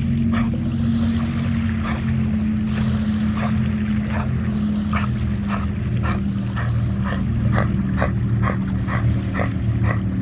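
A swimming dog breathes hard through a ball held in its mouth, in short regular puffs about two a second. Under it runs the steady low hum of a motor.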